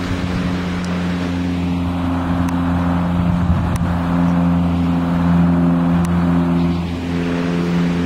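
Light single-engine propeller aeroplane flying low overhead, its piston engine and propeller giving a steady drone that swells slightly through the middle.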